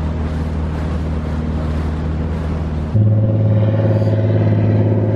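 Engine droning steadily. About three seconds in, an abrupt cut brings a louder, slightly higher-pitched engine hum.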